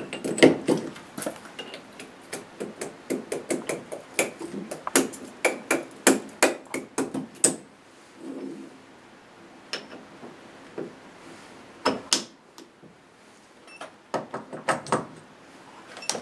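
Sharp metal-on-metal knocks and clinks as machined steel pipe sleeves and bearing collars of a drive shaft extension are handled and fitted together. The knocks come in a quick run for the first half, then a few scattered ones.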